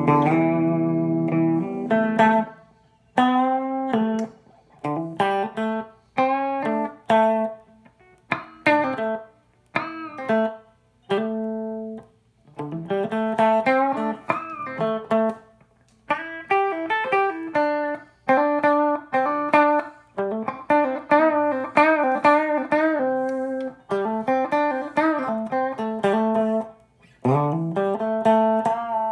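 Electric guitar, a Vogel Single Cut Jr. with a Seymour Duncan JB humbucker, played through a JTM50-style valve amp: loose noodling of single-note phrases and chords, with notes bent upward and short pauses between phrases.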